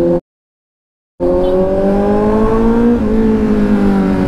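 Kawasaki Z900's inline-four engine pulling under light acceleration, its pitch rising gently. There is a brief hitch about three seconds in, after which it runs roughly level. The sound drops out to dead silence for about a second near the start.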